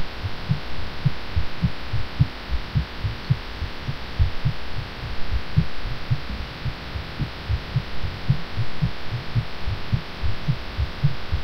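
A woman's fast heartbeat: a rapid, even run of low thumps over a steady hiss. The uploader felt unwell after taking cough medicine while sick.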